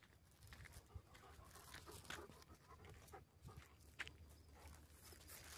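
Near silence, broken by a few faint crunching footsteps on a dirt track.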